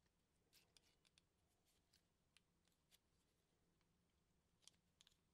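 Near silence, broken by faint scattered clicks and taps of small fuel-pump parts being handled by hand.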